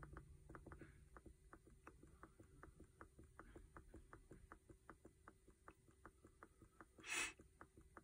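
Faint, quick clicks at about four a second from a Snap-on Modis Edge scan tool's scroll control, stepping the cursor down through the engine data list one item per click. A short soft rush near the end.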